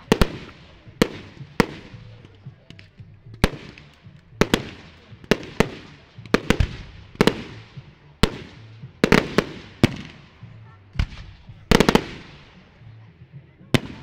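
Aerial firework shells bursting overhead: a string of sharp bangs, about one a second, each with an echoing tail, with a quick double bang about nine seconds in and a tight cluster about twelve seconds in.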